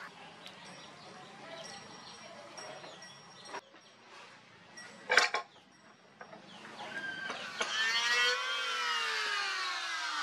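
An electric hand planer's motor spins up, its whine rising in pitch, then runs loud and sags in pitch as it cuts along a wooden strip. About five seconds in, before the motor starts, there is a single sharp knock.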